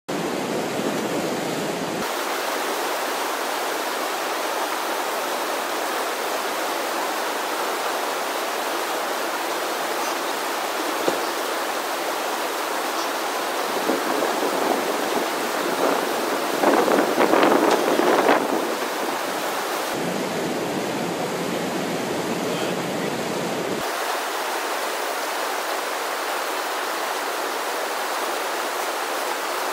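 Steady rushing of a river's whitewater standing wave, with a louder, rougher surge of splashing noise about two-thirds of the way through.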